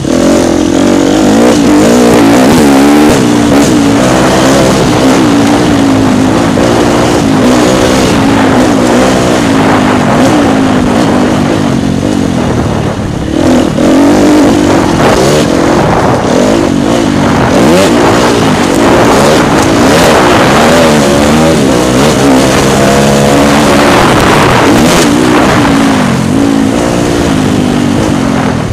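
Dirt bike engine heard from on board while riding a motocross track, revving up and dropping back again and again as the throttle opens and closes.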